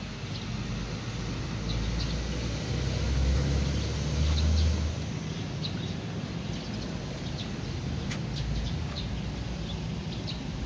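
Outdoor background with a steady low rumble that swells between about two and five seconds in, and small birds chirping now and then. A few light clicks come near the end.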